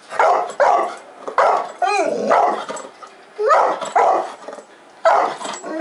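Bullmastiff barking at deer on the TV in short, loud barks, about eight of them in groups. About two seconds in, one bark bends into a rising-and-falling yelp.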